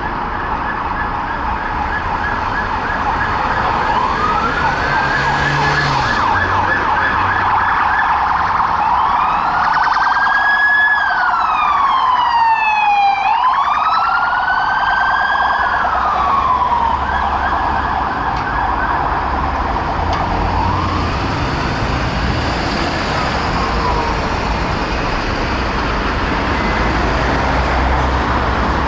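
Peugeot 308 police cars' sirens, switching between a fast yelp and a slow wail that rises and falls, with a fast yelp again about two thirds of the way through. Traffic noise runs underneath.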